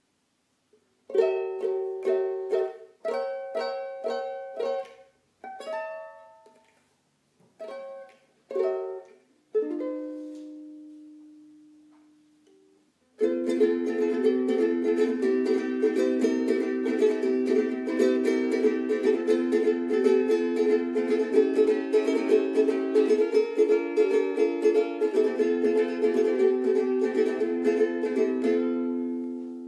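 A ukulele played solo. For about the first ten seconds it plays a series of separate strummed chords, each left to ring and die away, and the last one rings out. About thirteen seconds in a fast, steady strum starts, runs on and fades out near the end.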